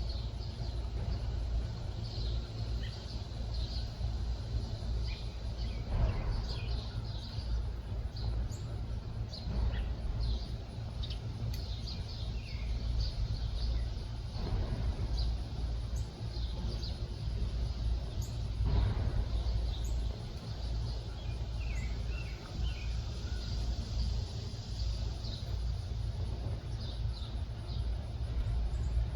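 Birds chirping and calling over a steady low rumble, with a few single knocks spaced several seconds apart.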